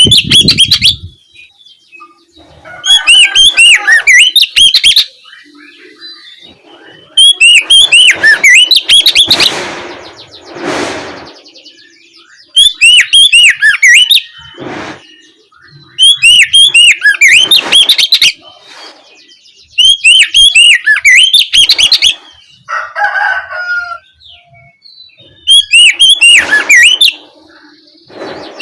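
Oriental magpie-robin (kacer) singing loud, full 'ngeplong' song phrases of rapid high whistles, in bouts of about two seconds repeated every few seconds.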